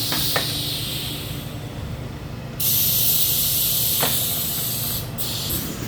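Compressed air hissing from an air line in on-off bursts, with a loud blast that starts suddenly about two and a half seconds in, stops briefly near the end and comes back. A low hum runs steadily underneath.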